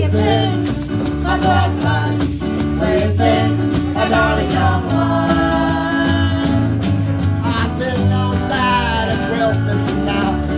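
Acoustic roots band playing live: guitar strumming over a steady bass line, with a melody line wavering above it, an instrumental passage before the singing comes in.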